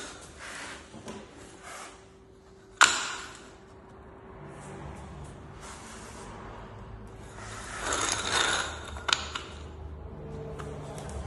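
Hand work on a wooden floor: a single sharp knock with a short ring about three seconds in, then a rustling scrape and a couple of clicks.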